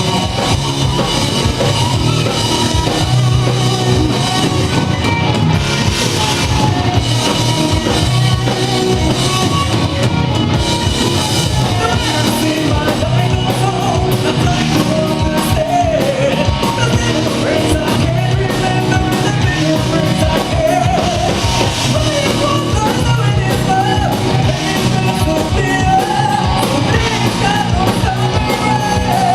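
Loud rock music with drum kit and guitar, and a singing voice over it.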